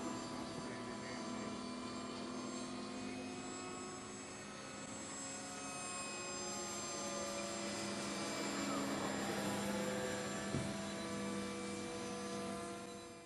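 Electric ducted fan of an RC model jet (a 90 mm FMS fan on a 6-cell battery) whining steadily in flight overhead. It sounds as a stack of steady tones whose pitch drifts slightly as the jet passes.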